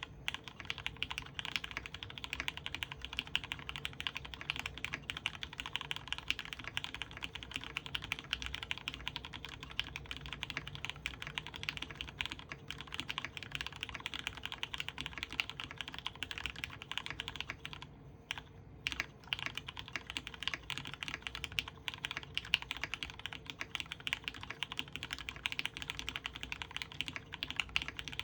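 Continuous fast typing on a custom Orion v2.5 mechanical keyboard with lubed Cherry Retooled Black linear switches, an aluminium plate and PBT keycaps. It goes as a dense run of keystrokes with a brief pause about two-thirds of the way through.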